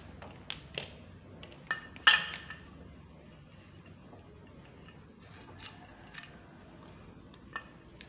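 Metal parts of an orbital fan motor (pressed-steel housing, stator and rotor) clinking and knocking as they are pulled apart and handled. There are a few sharp clinks in the first couple of seconds, the loudest about two seconds in with a short ring. Quieter handling follows, with one more clink near the end.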